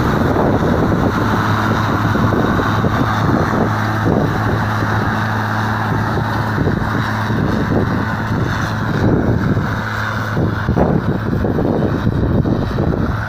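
KhTA-250 tractor's D-262.2S2 six-cylinder diesel running steadily under load while pulling a disc harrow, with the rough clatter and scrape of the harrow discs cutting through soil.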